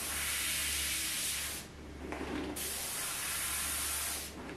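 Gravity-feed airbrush hissing as it sprays paint onto a helmet. It sprays in two bursts: the air cuts off about a second and a half in and starts again a moment later.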